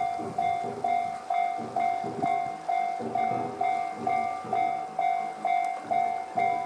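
Electronic railway level-crossing alarm of the Tobu 'sound C' type, sounding from both sides of the crossing: a repeated bell-like ding a little over twice a second, signalling that a train is approaching and the crossing is closing.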